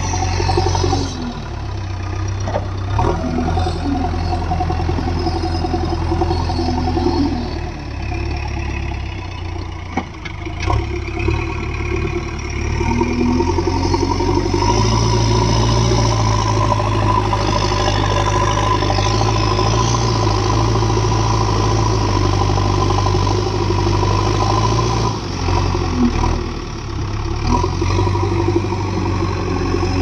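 Diesel engine of a JCB backhoe loader running under load as its front bucket pushes into a heap of soil. The engine note rises and falls with the work and is loudest from about fifteen to twenty-five seconds in, with a steady whine above it.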